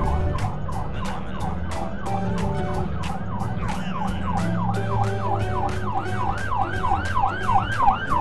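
Police car siren in fast yelp mode, its pitch sweeping up and down about three times a second, over a low steady drone.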